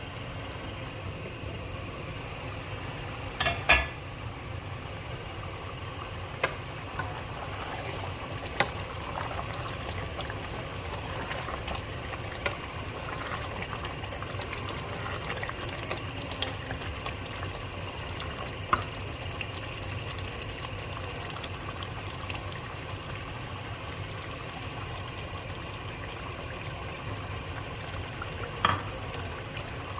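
Meat and cauliflower curry cooking in a pot: a steady sizzling and bubbling with scattered small pops. Two louder clinks, about four seconds in and near the end.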